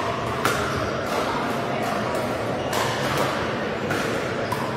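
Pickleball paddles striking a plastic ball during a doubles rally: several sharp pocks, a half-second to about a second apart, over the steady din of a busy sports hall.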